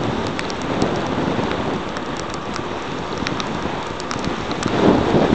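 Heavy rain falling on a handheld camera, with many sharp raindrop ticks on the device over a steady rush of rain. Wind noise swells louder near the end as the bicycle descends the wet road.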